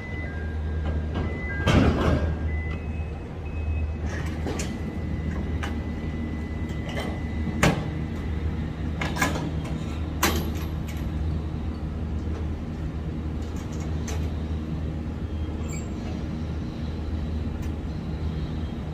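Large truck's diesel engine idling with a steady low hum, with scattered metal clanks and knocks from loading work at the truck. A two-tone electronic beeping stops about three seconds in.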